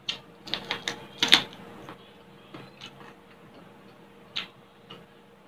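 Chewing crispy fried pork belly: a quick run of sharp crunches and mouth clicks in the first two seconds, the loudest about a second and a half in, then a few scattered clicks as the chewing goes on.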